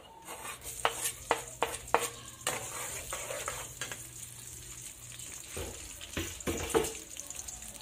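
Chopped onion sizzling in hot oil in an aluminium pot, with a steady high hiss. A metal spatula stirs it, knocking and scraping against the pot in a run of sharp clinks, thickest about a second in and again near the end.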